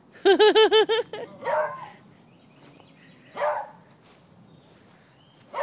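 Puppies barking at the fence: a quick run of about six high yips, then single barks a couple of seconds apart.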